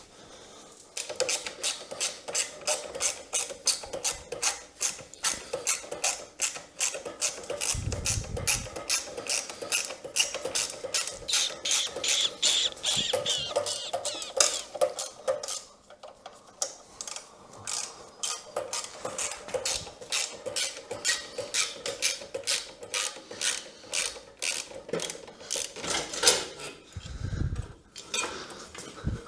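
Socket ratchet wrench clicking steadily, about three clicks a second, as a bolt is backed out, with a short break partway through and a couple of low thuds.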